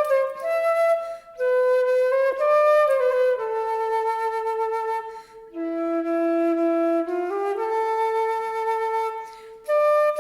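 A single wind instrument with a flute tone playing a slow melody of held notes, alone, in phrases broken by short pauses about a second in, around five seconds, and near the end.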